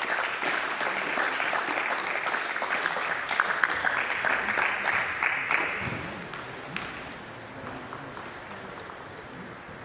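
Spectators clapping after a won table tennis point, the applause dying away about six seconds in.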